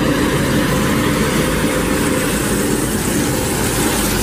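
City bus driving up and passing close by: a loud, steady rush of engine and road noise with a low hum.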